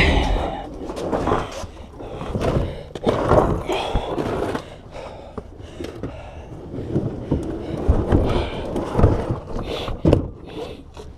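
A man breathing heavily from exertion while he handles and shifts boxes and household items, with irregular knocks, scrapes and rattles.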